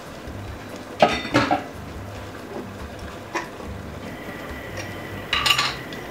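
Metal kitchen utensils clinking against a stainless steel soup pot: two sharp clatters about a second in, a light clink midway and another cluster near the end, over a low steady hum.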